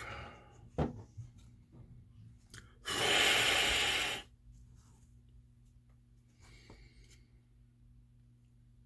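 A person blowing a long puff of breath onto freshly glued model parts, a breathy hiss lasting just over a second, about three seconds in. A faint steady low hum runs under it, with a couple of small clicks.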